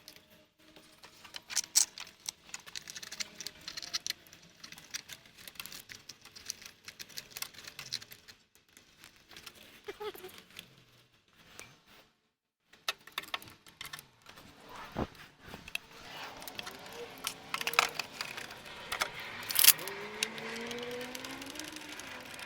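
Metal hand tools and parts clinking and rattling in irregular short clicks while engine components are refitted by hand. A steadier noise joins over the last several seconds.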